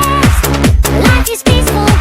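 Electronic dance music with a heavy bass beat and repeated falling pitch sweeps, with a brief break about a second and a half in.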